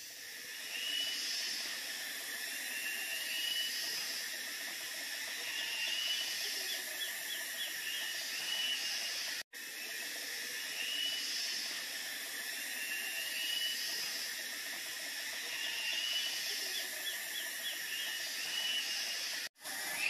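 Outdoor natural ambience picked up by the camera's built-in microphone: birds giving short calls that repeat every couple of seconds over a steady high hiss. The sound drops out for an instant about halfway through and again near the end.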